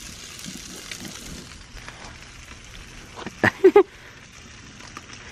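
Butter and trout sizzling in a foil tray on a grill, a steady hiss that fades about two seconds in. About three and a half seconds in, a short mouth noise from someone tasting the fish.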